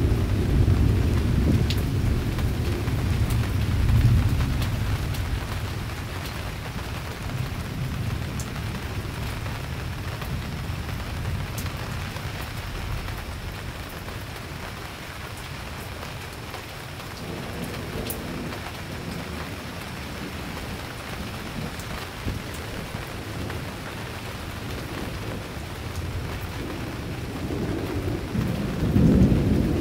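Thunder rolling over steady rain. A long, low rumble fades away over the first several seconds, leaving the hiss of rain with scattered drips, and another roll of thunder builds near the end.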